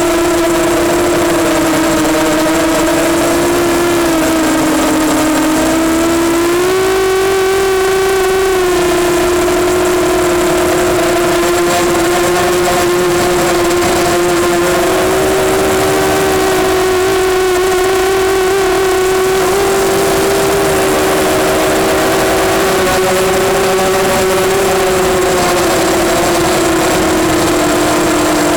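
Brushless motors and propellers of an EMax Nighthawk 250 racing quadcopter whining steadily in flight. The pitch dips slightly a few seconds in, steps up about seven seconds in, then wavers up and down with throttle.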